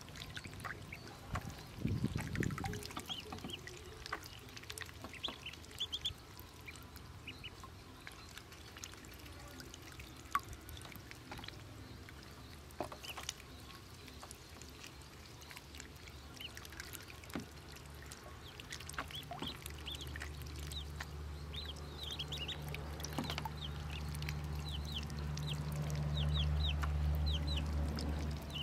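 Pekin ducklings peeping in short, falling chirps while paddling and splashing in a shallow tub of water. About two-thirds through, a low steady hum rises underneath and grows louder toward the end.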